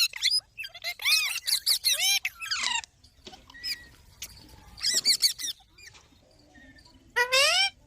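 A pet green parrot calling: bouts of shrill squawks and squeaks, with a longer, louder call near the end.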